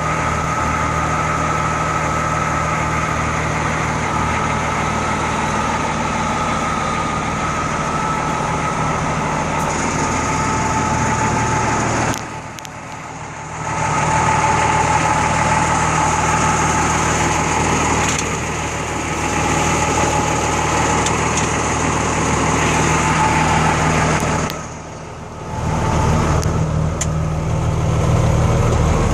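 M35A2 deuce-and-a-half truck's turbocharged multifuel inline-six engine idling, its turbocharger giving a steady high whistle over the low engine note. The sound drops away briefly twice.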